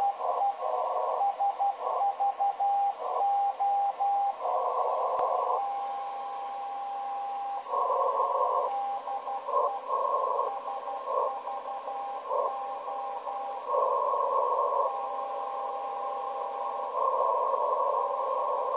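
Morse code from the Olympia Radio (SVO) coastal station on 8424 kHz, heard through a Kenwood TS-590S receiver in CW mode: a steady mid-pitched beat tone keyed into dots and dashes, with a few long unbroken stretches of tone. Bursts of hissy static fill the receiver's narrow CW filter in between.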